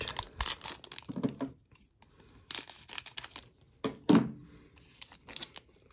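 Foil wrapper of a Metal Universe hockey card pack crinkling and tearing as it is pulled open by hand, in several short bursts with quiet gaps between.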